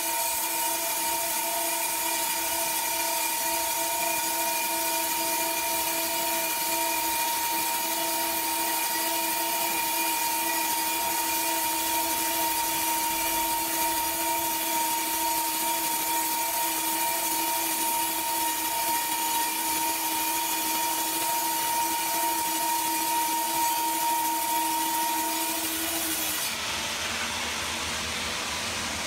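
Horizontal band sawmill cutting lengthwise through a large log: a steady saw whine of several held tones over a hiss. Near the end the whine drops away and a quieter hiss carries on.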